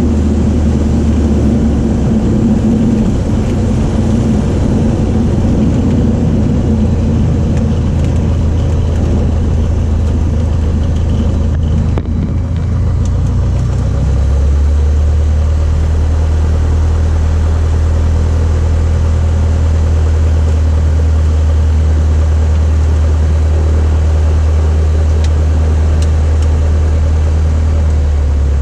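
Light aircraft's piston engine running steadily, with a brief dip about twelve seconds in and a slightly louder, changed engine note from about halfway through.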